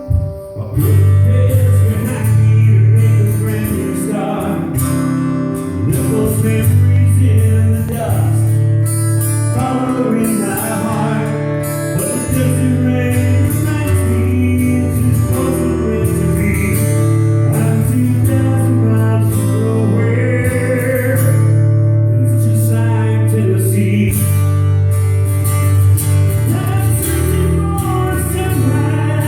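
Live rock song played at a sound check: a male voice singing over guitar, with long held low bass notes underneath.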